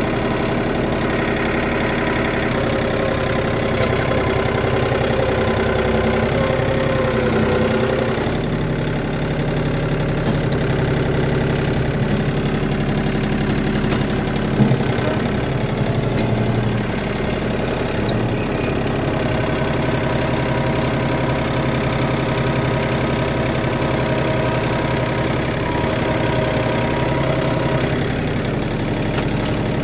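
John Deere 790 compact tractor's three-cylinder diesel engine running steadily while working the front loader, heard from the operator's seat. A single sharp knock comes about halfway through.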